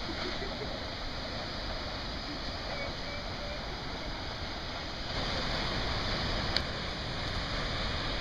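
Steady rushing of a tall waterfall plunging into a gorge, a little louder from about five seconds in, with one faint click.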